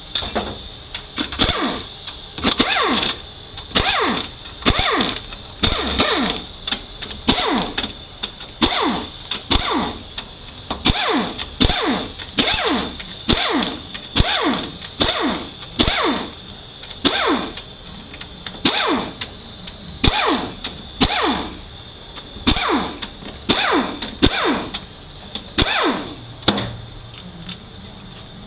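Hand ratchet on an 8 mm socket backing out the valve-body bolts of a Ford 4R75W automatic transmission. It makes a long run of sweeping strokes, a little more than one a second, that stops near the end.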